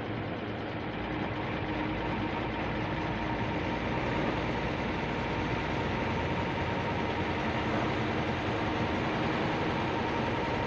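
Passenger bus driving at road speed, heard from inside the driver's cab: a steady engine drone with two constant pitches through it, over road and wind noise.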